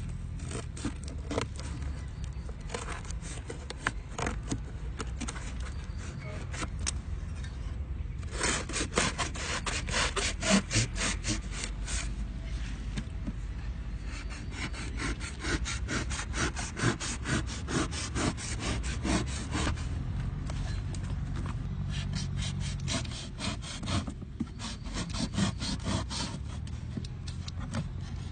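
Hand saw cutting wood in rapid back-and-forth strokes, about five a second, with brief pauses about eight seconds in and near the end.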